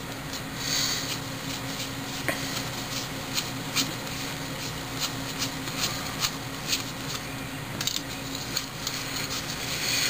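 Stack of baseball cards being thumbed through one at a time in the hands: light papery slides and flicks of cardstock at irregular intervals.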